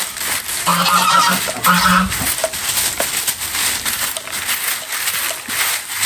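Swishing and scratching strokes of a stiff grass-stalk hand broom sweeping bare earth and dry leaves. About a second in, a bird gives two quick runs of short pitched calls.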